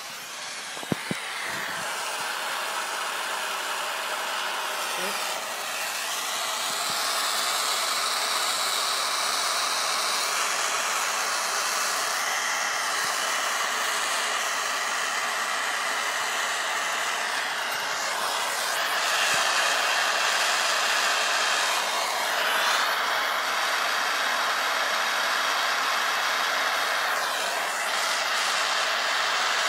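Gas torch flame hissing steadily while it heats a ring for silver soldering, with a couple of sharp clicks about a second in.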